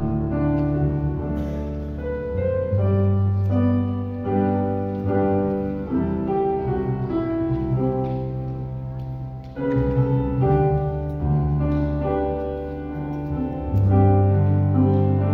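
Grand piano playing a slow hymn in full chords, with low bass notes held under each chord.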